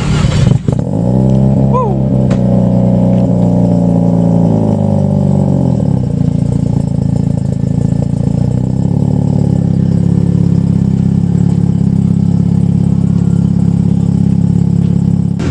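A car engine and exhaust running at a steady raised speed. About five seconds in its pitch falls away and it settles into a steady idle.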